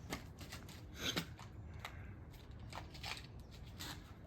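Scattered small clicks and rustles of handling, the loudest about a second in.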